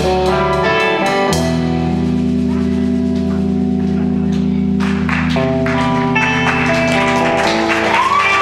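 Live rock band music: guitar chords strummed and left to ring over a held bass, changing about a second in and again past five seconds.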